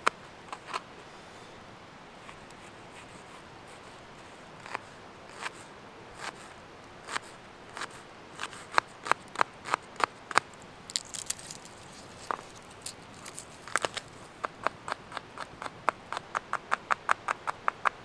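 Knife chopping shallots on a chopping board. It starts with a few scattered cuts, then speeds up in the second half into quick, even chopping of about four knocks a second.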